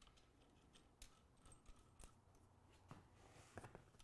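Near silence: faint room tone with a few soft clicks and taps of metal parts being handled as bolts are fitted to the suspension rail's rear wheels.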